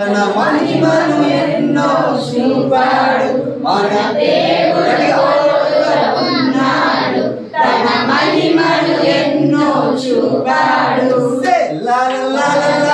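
Several voices singing a short Telugu Christian Sunday-school action song together, in phrases with a brief break about seven and a half seconds in.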